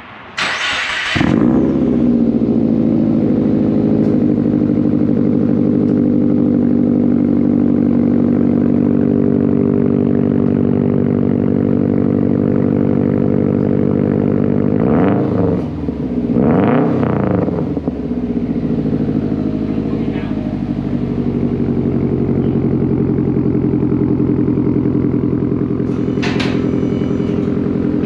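2011 Subaru WRX's turbocharged 2.5-litre flat-four, heard through a freshly fitted titanium cat-back exhaust, starting up cold with a short flare about a second in and settling into a steady idle. About fifteen seconds in it is revved twice, each rev rising and falling back to idle.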